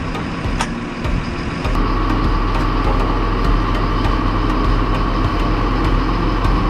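Diesel engine of a mobile crane running as it lifts a boat in slings. About two seconds in it gets louder and a steady whine joins it.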